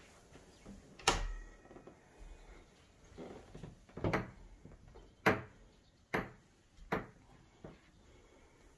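About five separate sharp knocks and clicks, each short with a brief ring-out, the loudest a little past five seconds in, heard in a small room.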